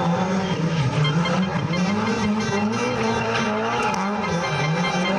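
Rally car engine revving hard, its pitch rising and falling several times in quick succession as the driver works the throttle and gears.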